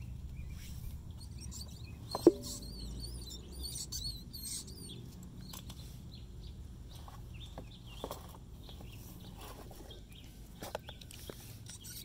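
Birds singing and chirping in the background, with a sharp knock that rings briefly about two seconds in and a few lighter knocks later from handling the fuel pump assembly and tank.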